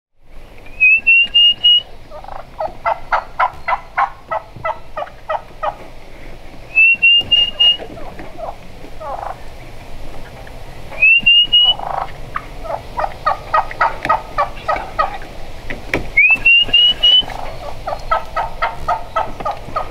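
Wild turkey hen giving the assembly call to gather her poults: long runs of evenly spaced yelps, about three or four a second. Four times a short, high, rising whistle comes just before a run and is the loudest sound.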